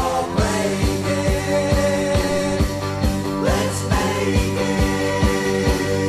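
Rock music with a steady drum beat and sustained guitar or keyboard chords, an instrumental passage with no singing.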